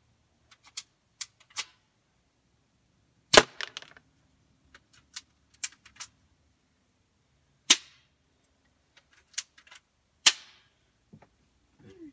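BB gun firing three shots a few seconds apart, each a sharp crack; quieter clicks and ticks come between the shots.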